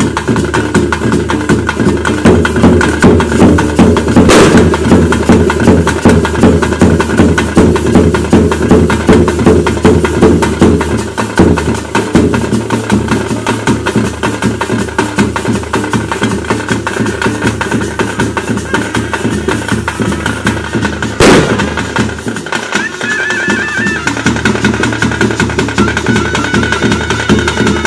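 Ritual drum band for a Bhuta Kola (daiva nema) playing fast, dense drumming over a steady drone. It eases off a little after about 11 seconds, and two sharp bangs cut through, one about four seconds in and a louder one about 21 seconds in.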